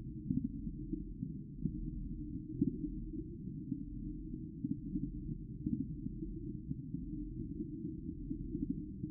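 Air bubbles in an aquarium, heard muffled and low, a steady low rush with many soft irregular pops.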